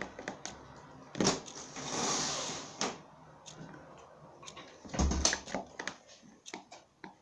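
Handling noise from a plastic tub of slime being tilted and stirred with a spatula: scattered clicks and light knocks, a short hiss about two seconds in, and a heavier thump about five seconds in as the tub meets the table.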